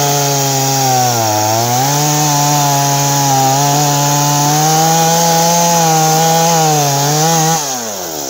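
Stihl MS170 two-stroke chainsaw running at full throttle while cutting into wood. The engine pitch sags briefly under load about a second in and then holds high. Near the end it drops off steeply as the throttle is released.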